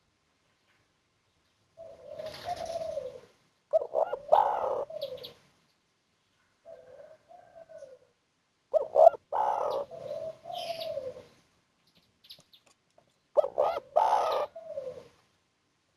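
A male spotted dove (tekukur) cooing its song three times, each a series of low, throaty coos with gaps of silence between phrases. It is a 'kuk 1' song, in which each phrase closes with a single 'kuk' note.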